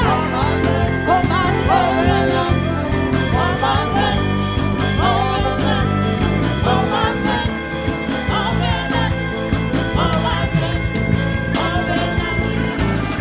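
Live worship band music: a bending lead melody over sustained bass notes and a full accompaniment.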